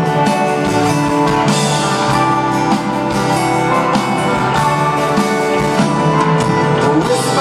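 A live rock band playing with strummed acoustic guitars and drums, recorded from the crowd in an arena.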